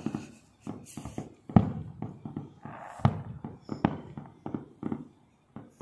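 Fireworks going off at a distance: a rapid, uneven series of bangs and pops, with the heaviest booms about a second and a half in and again about three seconds in.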